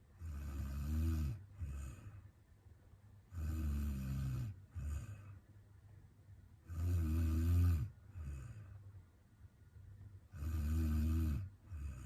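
A sleeping woman snoring: four long, low snores about three and a half seconds apart, each followed by a short, fainter sound.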